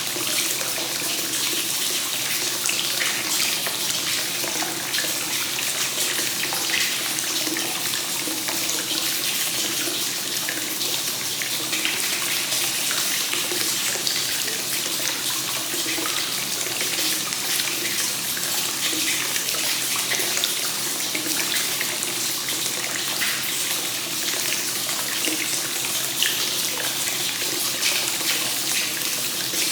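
Hot spring water pouring steadily into a bath from a free-flowing spout, splashing continuously onto the water's surface.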